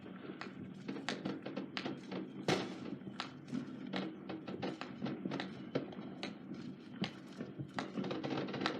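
Consumer fireworks going off: a dense, irregular run of pops and crackles, the loudest bang about two and a half seconds in.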